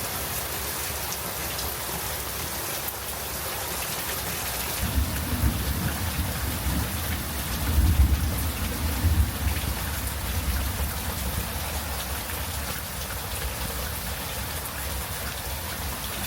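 Steady rain falling, with a low rumble of thunder that swells about five seconds in and dies away a few seconds later.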